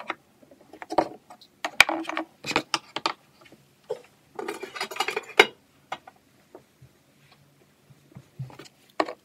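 Scattered clicks and knocks of plastic cosmetic bottles and makeup items being picked up and set down on a vanity tabletop.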